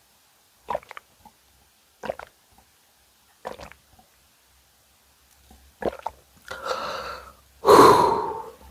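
Close-miked eating sounds of a ramen and karaage meal: short mouth sounds every second or so, then two longer, louder noisy sounds near the end, the second the loudest.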